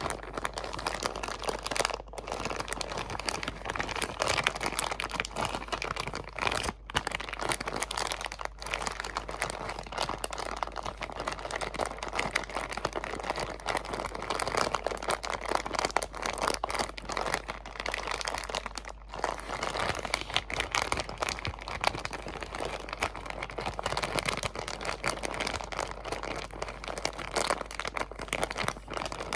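Close-up crinkling of crinkly material handled right at the microphone: a dense, continuous crackle, broken by a few short pauses.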